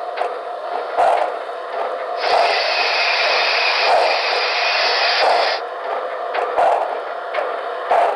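HO-scale Santa Fe 3751 4-6-4 Northern model running slowly, with its DCC sound system playing steam locomotive sounds through its speakers. A steady mechanical sound is marked by sharp clicks about every second and a half. A loud steam hiss starts abruptly about two seconds in and cuts off about three seconds later.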